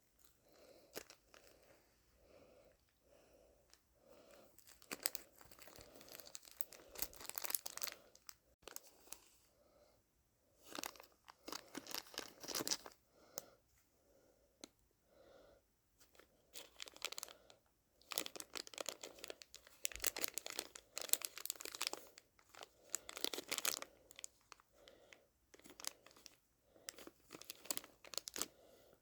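A plastic blind-bag pack being torn open and crinkled, in several bursts of tearing and rustling with short pauses between.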